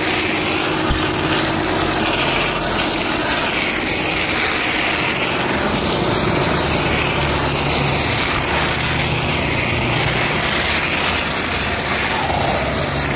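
Foam nozzle of a car-wash foaming shampoo machine spraying thick, dense foam in a steady hiss, with a low hum underneath.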